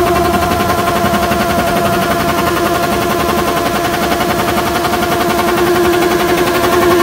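Suzuki Hayabusa's inline-four engine being over-revved, held steadily at very high revs with a rapid pulsing buzz, growing slightly louder near the end.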